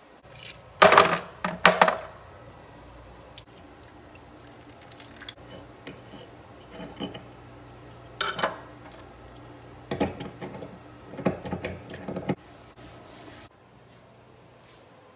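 Small metal plumbing fittings and nuts clinking and rattling in a bowl as a hand sorts through them, in several short bursts of jingling clicks.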